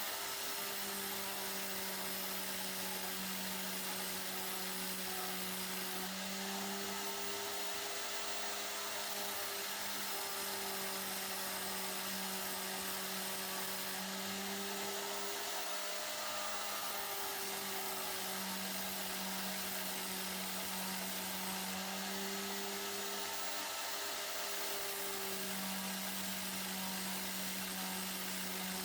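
Small power tool's motor whining steadily, its pitch sagging slightly and recovering every few seconds.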